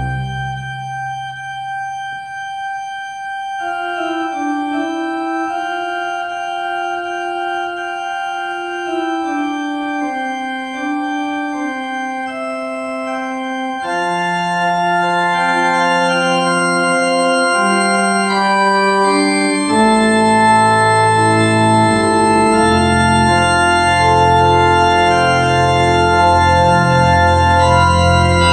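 Organ playing slow, sustained notes: a held high note over a quiet middle melody at first, a bass line coming in about halfway, then fuller, louder chords near the end.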